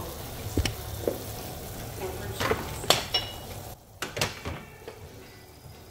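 A pot of sinigang (sour soup) at a rolling boil, bubbling and hissing, with several sharp knocks and clinks of a utensil against the pot; the boiling noise drops away about two-thirds of the way through.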